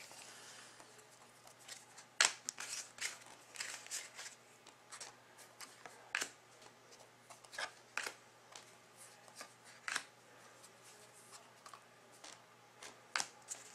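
A stack of trading cards handled and flipped one by one: faint, irregular clicks and snaps as stiff cards, some clear acetate, slide over each other and are moved to the back of the stack.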